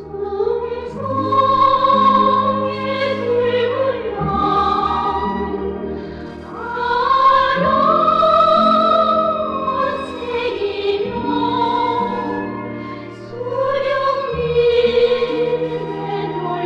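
Operatic singing with orchestral accompaniment: long held, sliding vocal lines over sustained low chords.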